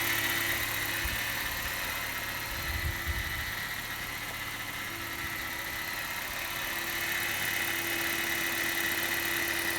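BMW 116i (E87) four-cylinder petrol engine idling, with a steady high-pitched whine over the idle. This is the noise it makes on first start every morning since its timing chain was replaced.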